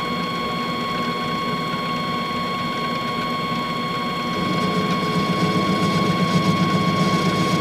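Metal lathe running with a steady mechanical whir. About four and a half seconds in it grows a little louder, with a rapid pulsing.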